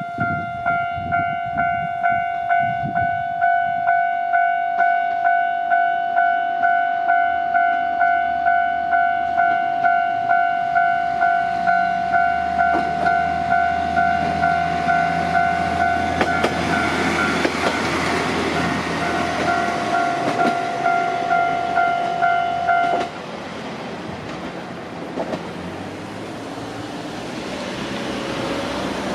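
Japanese level-crossing warning bell ringing, a repeating electronic tone about two strokes a second, while a diesel railcar runs over the crossing with rising rail and engine noise from about halfway. The bell cuts off abruptly about three-quarters of the way through, leaving the fading running noise of the train.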